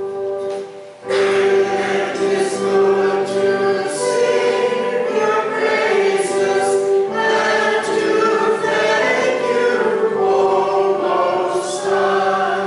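A church congregation and choir singing together on slow, long-held notes. The singing comes in fully about a second in, after a softer lead-in.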